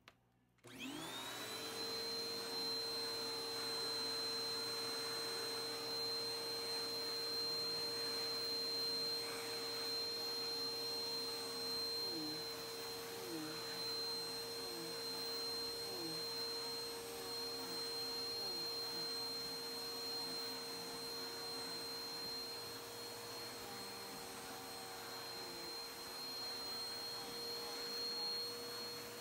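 Vacuum cleaner switched on about a second in, its motor spinning up to a steady run with a constant high whine, as the nozzle is worked over a quilted mattress top.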